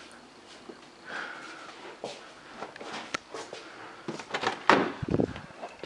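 Irregular knocks, clicks and rustles of someone moving about with a handheld camera. The loudest knock comes a little under five seconds in, followed by a low thump.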